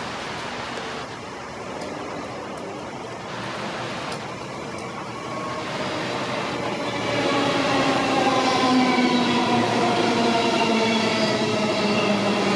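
Queensland Rail electric passenger train pulling into the platform. Its traction motors whine in several tones that slide slowly down in pitch as it slows, growing louder about seven seconds in, over a steady hiss of rain.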